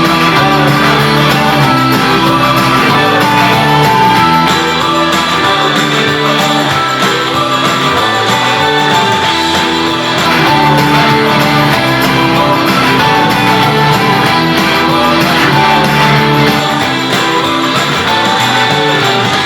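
Guitar-led rock music played at high volume through a portable Bluetooth speaker, running steadily with no pause.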